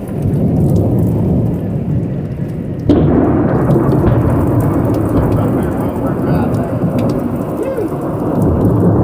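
Heavy rain falling during a thunderstorm, with thunder: a sudden loud clap about three seconds in that carries on as a low rumble.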